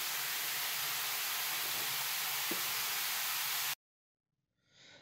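Baking soda and vinegar fizzing in a sink drain: a steady hiss of foam bubbling, which cuts off suddenly near the end.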